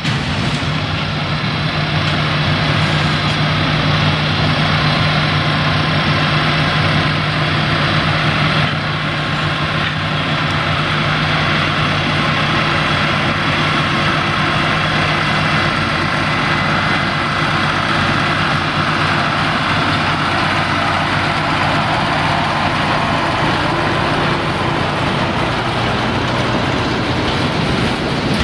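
Small narrow-gauge diesel field-railway locomotive running steadily as it hauls a long train of loaded peat wagons past, with the rolling noise of the wagons' wheels on the rails growing partway through.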